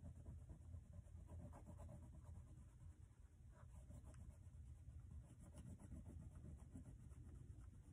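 Faint scratchy rubbing of a crayon stroked back and forth on easel-pad paper, lightly filling in colour.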